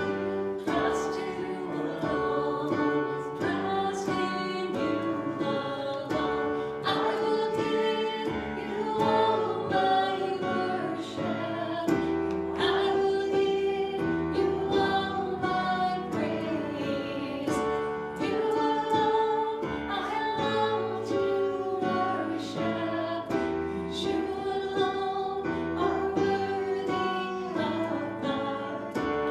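Worship song: voices singing a melody over instrumental accompaniment, continuous throughout.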